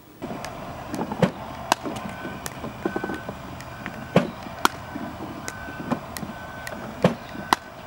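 Pickleball paddles hitting a plastic ball in a quick exchange of drives and blocks: sharp pops at uneven intervals, several close together. A short high beep repeats about every two-thirds of a second behind them.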